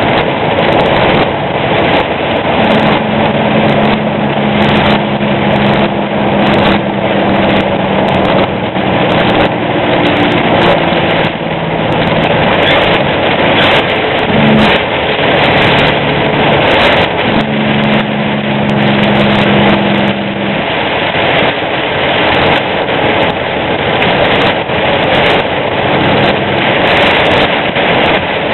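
Semi truck driving in heavy rain: a constant rush of rain and tyre spray on a wet road, with the truck's engine drone standing out as a steady hum for long stretches.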